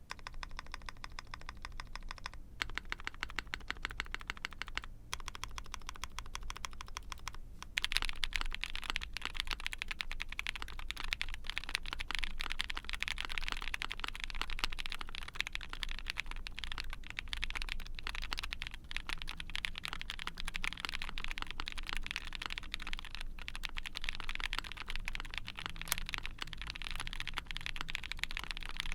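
Typing on an ai03 Vega mechanical keyboard with a POM plate, GMK keycaps and lubed Tecsee Strawberry Milk linear switches: a steady run of keystrokes with a few brief pauses in the first several seconds. The typing turns louder and denser from about eight seconds in.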